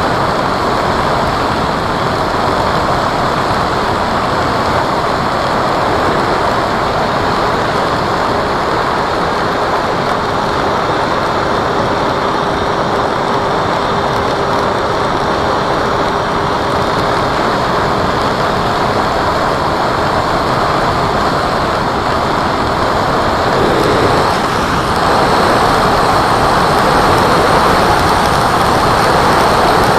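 Steady rushing noise of air and propeller from an electric RC model Cessna in flight, with a faint steady whine through the middle. The noise grows a little louder about three-quarters of the way through.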